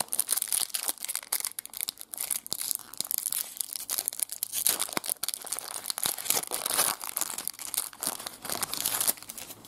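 Foil trading-card pack wrapper crinkling and tearing as it is worked open by hand: a dense run of crackles and sharp clicks that stops shortly before the end.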